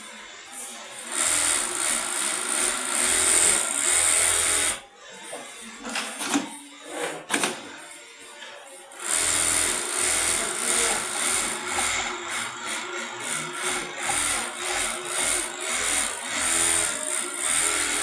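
Automatic pattern sewing machine stitching through quilted cotton with a fast, steady needle rattle. It goes quiet for a few seconds about a third of the way through, with a few sharp clicks, then runs again.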